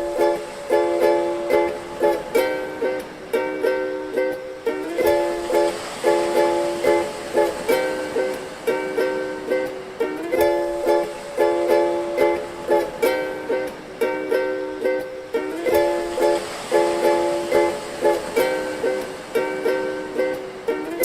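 Ukulele hip-hop instrumental: plucked ukulele chords repeating over a steady drum beat.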